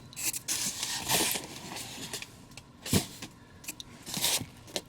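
Cardboard and plastic packaging being handled: scraping and rustling in bursts, with a sharp knock about three seconds in.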